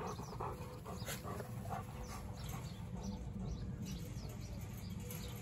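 Labrador retrievers making faint, scattered whines and short yips over a steady low background noise.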